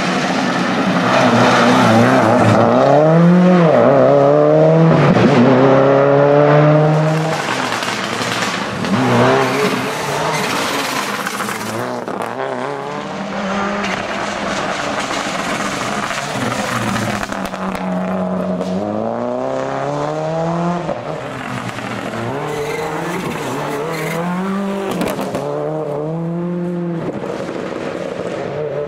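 Subaru Impreza rally car's turbocharged flat-four engine at full throttle, revving up through the gears with a drop in pitch at each upshift. It passes several times and is loudest in the first seven seconds.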